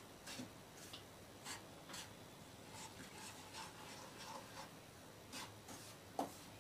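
Wooden spatula scraping and pushing a crumbly ground mixture around a nonstick pan as milk is worked in, in faint, irregular scratching strokes about two or three a second.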